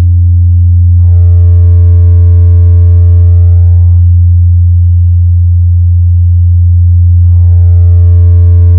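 Loud, steady, very deep electronic low-frequency hum. A buzzier layer of higher overtones joins it twice, about a second in for some three seconds and again near the end.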